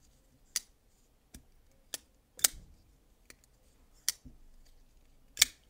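XTOUC DT105 folding pocket knife being flipped open and closed several times. Each swing gives a short, sharp metallic click as the blade snaps into lock or shuts, about eight clicks in all. The detent could be a little snappier but is really not bad.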